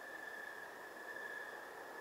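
A steady chorus of night insects in late summer: one continuous high trill that swells slightly, over a soft hiss.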